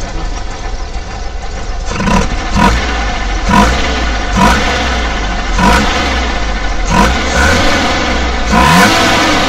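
Mazda 12A two-rotor rotary engine of a second-generation Mazda Luce, breathing through an open-stacked twin-choke carburettor. It idles for about two seconds, then is revved in about seven quick throttle blips, each rising and falling, revving freely and lightly.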